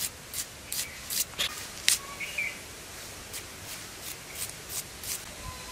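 Knife slicing through a raw onion held in the hand: a series of short, crisp cuts, about two to three a second, stronger in the first couple of seconds.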